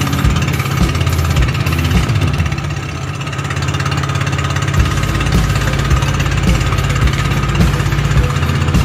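Outrigger banca's engine running steadily under way, a dense low pulsing drone, with the rush of wind and water spray over it; a deeper low hum joins about halfway through.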